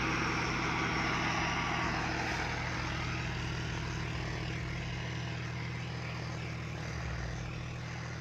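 John Deere 5105 tractor's three-cylinder diesel engine running steadily under load as it drives a 7-ft Maschio rotavator through the soil, holding its revs with little drop. The sound slowly fades.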